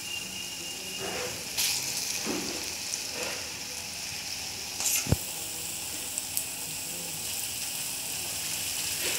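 Bread-and-banana batter fritters deep-frying in hot oil in an iron kadai: a steady sizzle, with a few short clicks as batter is spooned in and the fritters are turned.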